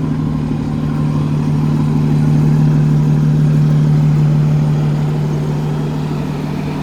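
The New Flyer D40LF bus's Cummins 8.9 L six-cylinder ISL diesel engine running with a steady low hum, heard from inside the bus; it swells slightly midway and eases off towards the end.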